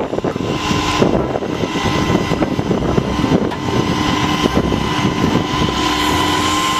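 Heavy rotator tow truck running steadily with a dense mechanical rumble and a high, steady whine over it.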